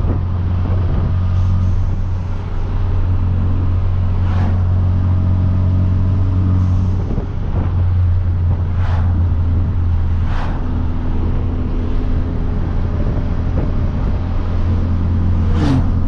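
Hyundai Veloster Turbo's 1.6-litre turbocharged four-cylinder with a catless downpipe, droning steadily at a cruise. A few short, sharp clicks sound over the top, and the drone dips briefly twice.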